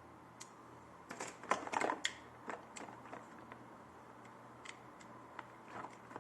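Irregular clicks and clatter of hard plastic parts of a hair and beard trimmer set being handled: a quick cluster about a second in, then scattered single clicks. The trimmer motor is not running.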